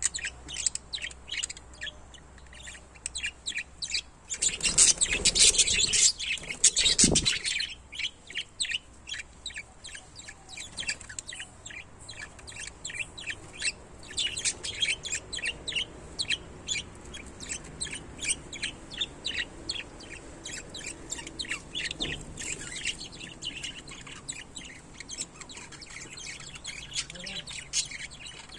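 A pair of small parrots chattering with rapid, continuous high chirps. There is a louder, harsher stretch of calling from about five to seven seconds in.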